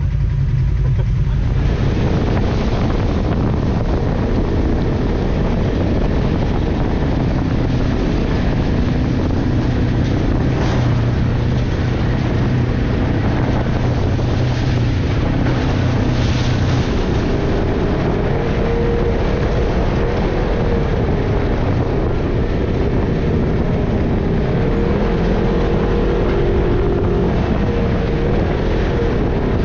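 Off-road side-by-side engine running under way on the trail, with wind buffeting the microphone. From about halfway on, the engine's pitch rises and falls as the throttle changes.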